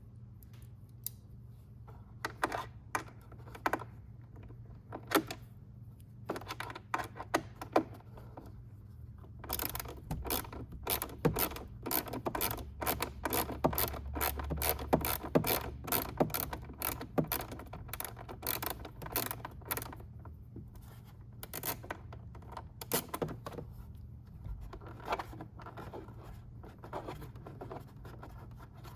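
Torx T25 screwdriver backing screws out of a motorcycle's plastic fairing: scattered clicks and scrapes, then a dense run of rapid clicking for about ten seconds in the middle, thinning out toward the end. A faint steady low hum runs underneath.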